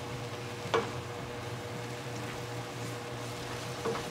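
Wooden spatula stirring a chicken and napa cabbage stir-fry in a nonstick wok, working in starch to thicken the sauce, over a steady low hum. Two short scrapes of the spatula, about a second in and near the end.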